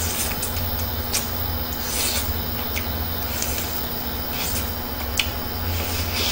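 Close-up eating of a grilled giant freshwater prawn's head: mouth and shell noises, a scattering of short clicks and smacks.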